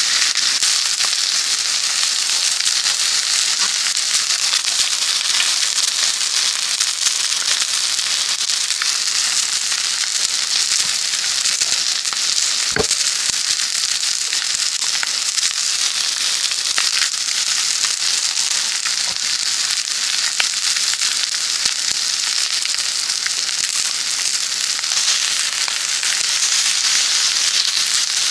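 Food frying over a small wood fire: a steady sizzle dotted with many small crackles and pops. A single brief clink about 13 seconds in.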